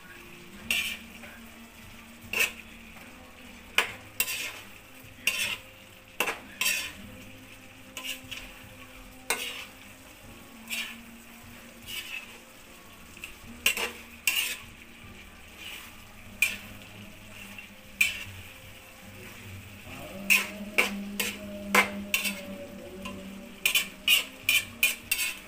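Metal spatula scraping and knocking against a wok while stirring chicken afritada in a thickening tomato sauce, over a steady sizzle from the pan. The strokes come about once every one to two seconds, then quicken into a rapid run of scrapes near the end.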